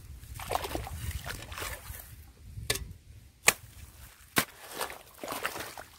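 A hoe chopping into wet, muddy soil at the edge of an irrigation channel, with water sloshing and trickling; three sharp knocks, the loudest about halfway through.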